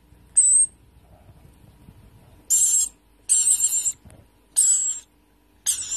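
Rainbow lorikeet chick giving short, hissy, high-pitched feeding calls with a thin whistle in them, five times, each under a second, while it drinks nectar mix.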